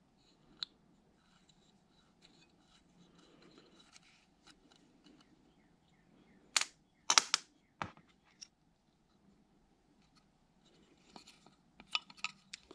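Small-parts handling on a Ford TFI distributor: a hex key scraping and ticking in the pickup's retaining screws, then a few sharp metallic clicks on the steel bench about halfway through. A further run of clicks and rattles comes near the end as the plastic Hall-effect pickup is worked out of the aluminium housing.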